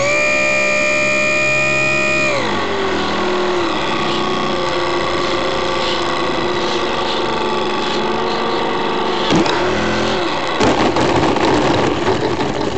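The electric motor and propeller of a HobbyZone Super Cub RC plane whining, heard from the plane itself. The pitch drops about two seconds in as the throttle is pulled back for landing. Near the end, a rough rattling noise joins as the wheels touch down and roll on gravel.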